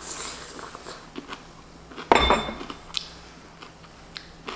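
A small ceramic dish set down on a table with a ringing clink about two seconds in, followed by a few lighter clicks of chopsticks.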